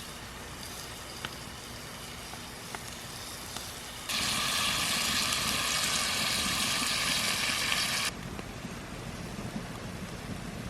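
Food frying in bacon grease in a cast iron skillet, sizzling with scattered small pops and crackles; the sizzle is much louder for about four seconds in the middle, starting and stopping abruptly.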